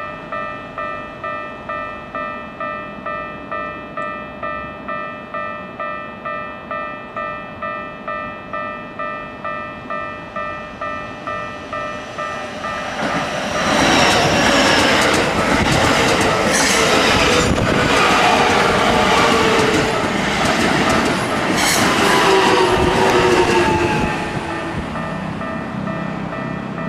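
Railway level-crossing bell ringing in a steady pulse about twice a second. About thirteen seconds in, a Keikyu 2100 series electric train passes through the crossing at speed for around ten seconds: loud wheel-on-rail noise with a whine that falls in pitch and a few sharp clicks from the rail joints. The crossing bell keeps ringing as the train clears.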